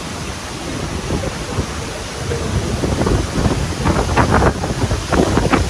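Strong wind blowing on the microphone, with sea surf behind it, in a tropical storm; louder gusts come around four and five seconds in.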